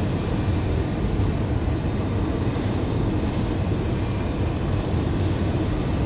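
Steady cabin noise of an Airbus A320 in flight on approach, heard from a window seat beside the engine: an even rumble of the jet engine and airflow, heaviest in the low end.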